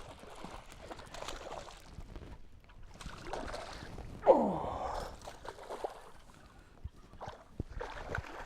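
Water splashing and knocking around a small boat as a hooked smallmouth bass is played, with one short, loud sound about four seconds in that slides down in pitch.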